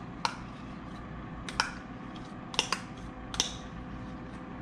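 Metal utensils clicking and tapping against a bowl while mayonnaise is stirred into shredded cabbage for coleslaw: five short sharp clicks, two of them close together just past halfway, over a faint steady hum.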